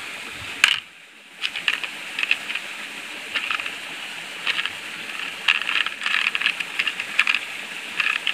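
Small stones and metal pieces clicking and clinking against each other and a plastic tub as a hand sorts through them: a run of short, light clicks.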